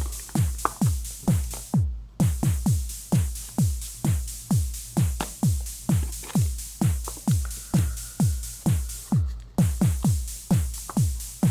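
Electronic background music with a steady kick-drum beat, about two to three thumps a second, dropping out briefly twice.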